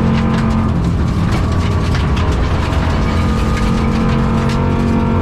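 Rally car heard from inside the cabin, its engine running steadily under load through a dog-box transmission while gravel rattles and clicks against the body. The engine has a bad misfire and is down on power.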